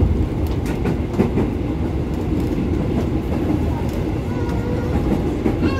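Inside the carriage of a KRL Commuterline electric train running at speed: a steady low rumble of wheels on the track, with a few sharp clicks over rail joints.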